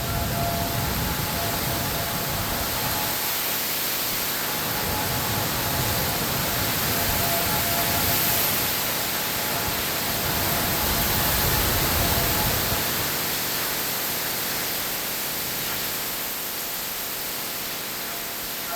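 Heavy rain falling as a loud, steady hiss, with wind rumbling on the microphone through roughly the first two thirds. A civil defense warning siren's steady tone fades out in the first few seconds.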